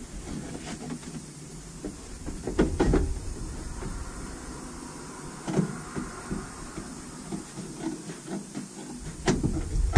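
A stiff cardboard template being handled and pulled out from a truck footwell: rustling and scraping with a few sharp knocks, a pair about three seconds in, one in the middle and the loudest near the end.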